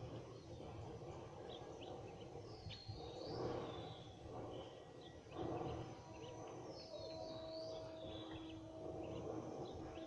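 Birds chirping and twittering faintly over low outdoor background noise. A steady hum joins about halfway through.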